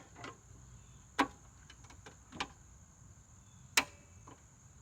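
A few sharp metal clicks and knocks, three louder ones a second or more apart, as the mower's side chute and clamping tools are handled and fitted into place, over a steady faint high tone.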